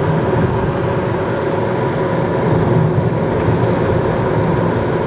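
Steady engine and road noise of a car driving, heard from inside the cabin.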